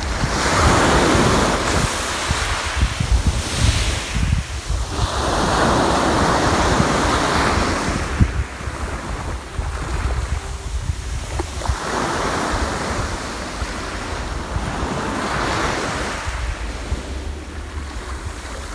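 Sea waves breaking and washing up the shore in four slow surges, with wind buffeting the microphone as a steady low rumble underneath.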